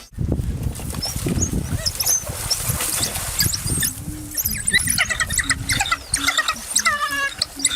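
Rapid, high-pitched animal squeals and chirps, many short calls, some falling in pitch, over a low rumbling noise during the first half.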